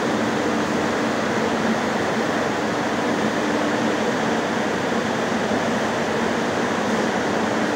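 Industrial corn dryer running: a steady, even rush of air from its blowers with a faint low hum underneath.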